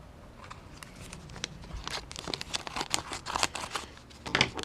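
Crinkling and rustling as a small parts package is opened, with quick irregular crackles starting about a second and a half in.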